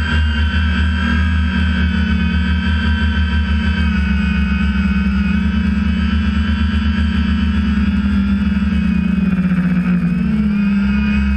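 Quadcopter's electric motors and propellers whining steadily, heard up close from the drone's own onboard camera, with a low fluttering rumble underneath. The motor pitch dips and then climbs again about ten seconds in.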